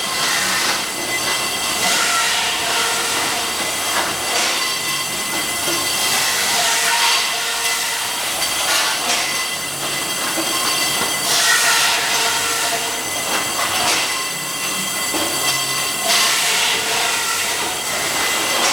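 Automatic circular-saw pipe cutter running, its blade giving a steady high-pitched whine with repeated louder screeching surges every few seconds as it cuts through a bundle of metal pipes.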